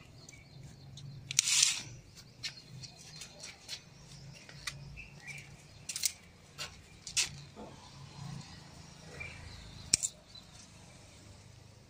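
Pruning shears snipping tomato stems off the vine: scattered sharp clicks, a few louder than the rest, with some rustling of the plants.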